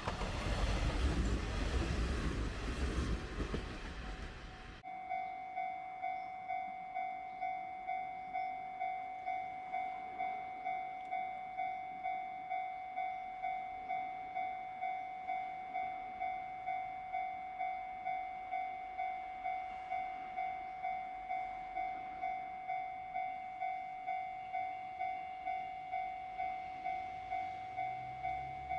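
A train passing close by with a loud rushing rumble that cuts off abruptly about five seconds in. Then a Japanese level-crossing warning bell rings steadily, an electronic two-tone ding about twice a second. A low rumble begins to rise near the end.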